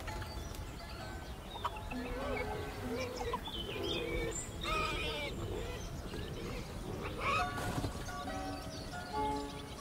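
Background music with steady held notes, with bird-like chirps sounding over it in the middle.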